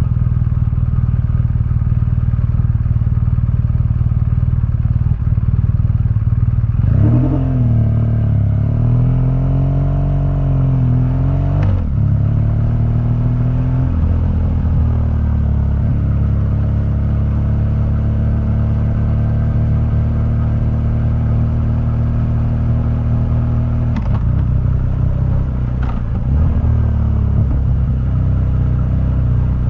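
BMW R1200GS boxer-twin engine running through its stock exhaust. The note is steady at first, then rises and falls several times about a third of the way in, and settles into a steady drone. A few sharp clicks come in the middle and near the end.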